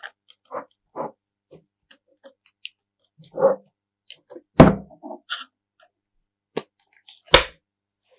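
Slime being handled and pressed: scattered sticky clicks and small pops, with two sharp, loud thumps about four and a half and seven and a half seconds in.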